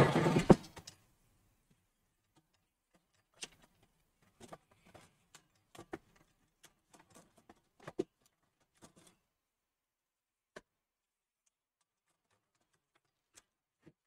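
Plastic clicks and snaps from the front bezel of an HP Desktop M01 being pressed onto the steel case, its clips locking into place. A scatter of small clicks comes over several seconds, the loudest about eight seconds in, with a few lone ticks later.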